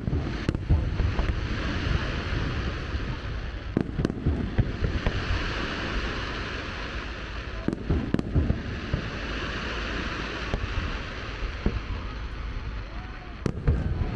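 A fireworks display, heard from a distance: sharp bangs every few seconds over a constant low rumble of booms and echoes, with a high hiss swelling up between the bangs.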